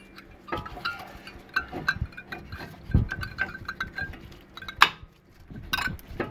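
Metallic clinks and taps as a brake pad's steel backing plate is worked back into the caliper bracket and its clips, with a sharp click a little before five seconds in.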